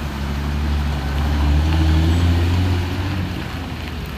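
Heavy truck engine running with a deep rumble, its pitch rising slightly for a moment about a second and a half in.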